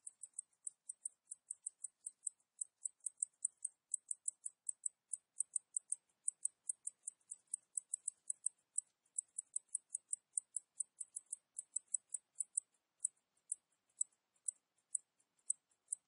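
Cicadas calling in a rapid series of short, high-pitched chirps, about five or six a second, which become sparser and more spaced out near the end.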